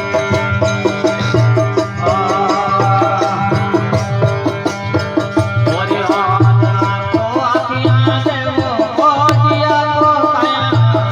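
Instrumental music of a devotional bhajan. A steady hand-drum rhythm is played under a melodic line that glides and wavers, the melody growing stronger about two seconds in.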